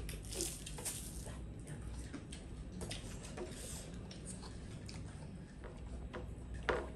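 Quiet eating sounds: chewing, and fingers mixing rice and curry on a metal plate, with scattered small clicks and soft squelches. A short vocal sound comes near the end.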